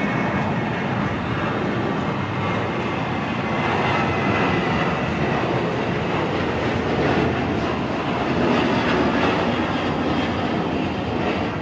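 Jet airliner's engines: a steady loud rush of noise with a faint high whine, swelling slightly around the middle.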